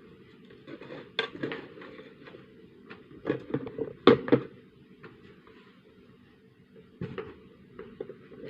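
Cutlery clinking and scraping against a plate in scattered sharp clicks, with a cluster of louder clinks about four seconds in.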